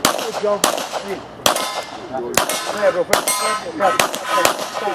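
Handgun shots fired at a steady pace, about five in a row, roughly a second apart. Several are followed by a ringing clang of steel targets being hit.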